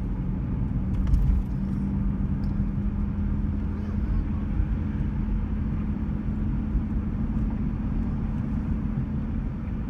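Car driving at a steady speed, heard from inside the cabin: a steady low engine and tyre rumble with a constant hum.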